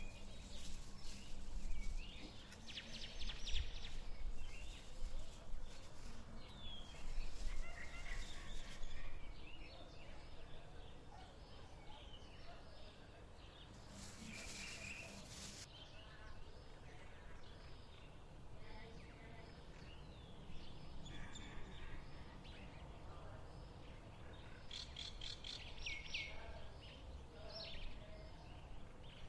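Birds chirping in short calls over low background noise, the calls clustered near the end, with faint rustling and scraping from hands and a spoon working on a flatbread on parchment paper.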